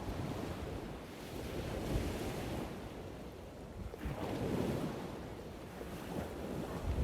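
Ocean waves washing in over a low rumble, swelling and falling away twice.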